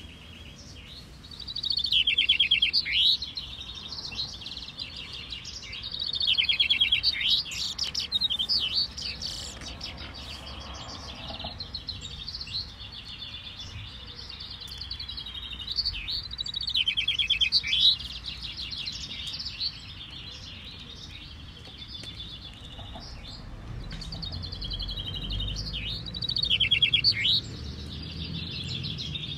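Several caged male chaffinches singing in turn. Each song is a fast trill about two seconds long that drops into a short downward flourish. Louder songs come every several seconds, with fainter ones from birds farther along the line.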